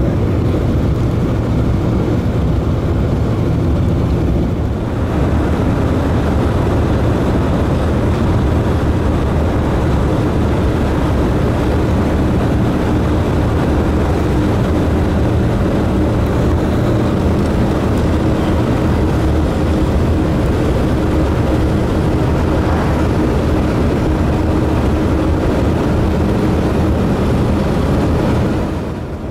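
A 1947 Ford driving at steady road speed: a constant low engine drone mixed with road and wind noise, easing off briefly just before the end.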